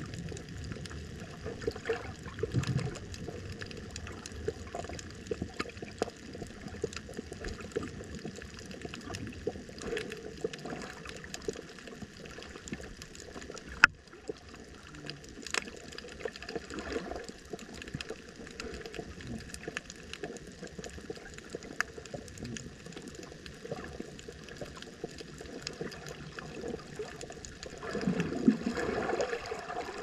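Coral reef underwater ambience: a steady watery hiss dotted with many small clicks and crackles, one sharp louder click about halfway through, and a louder gurgling swell near the end.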